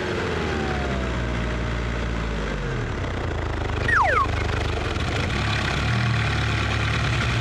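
Car engine sound effect running with a steady low hum that shifts in pitch partway through, with a short falling whistle about four seconds in.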